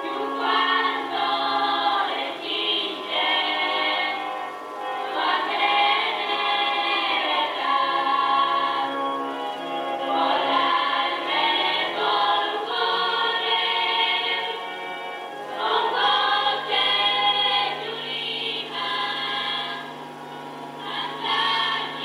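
A choir singing a religious hymn in long phrases with short breaks between them, over steady low held notes.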